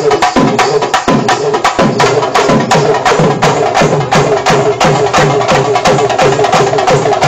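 Loud, fast festival drumming: dense sharp strokes several times a second over a low tone that bends up and down over and over.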